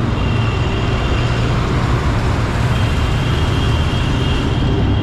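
Motorcycle ride through city traffic: a steady, loud rumble of engine, road and wind noise, with faint thin high tones in the background.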